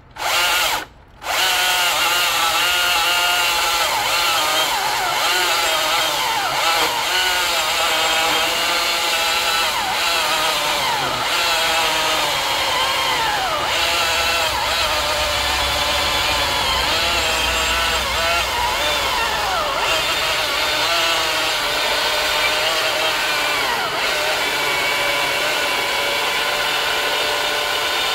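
Ego CSX5000 cordless electric chainsaw, set to its highest speed, cutting into a large log. The motor and chain whine stops twice briefly near the start, then runs without a break, its pitch wavering as the chain loads in the wood.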